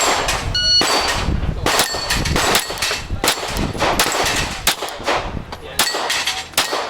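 A shot timer beeps once, then a Glock pistol fires a fast string of shots, with steel targets clanging as they are hit.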